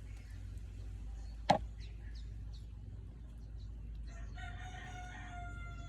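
A single sharp snap of scissors cutting through a thick zip tie, then a rooster crowing once near the end, one long call of about two seconds.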